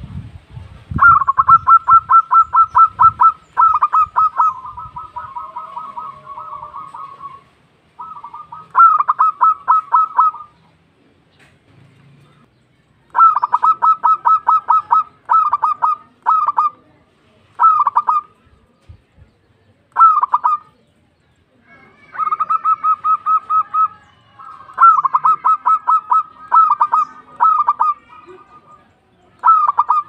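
Zebra dove (perkutut) cooing: rapid trains of short, clipped notes, repeated in phrases with pauses of a second or two between them.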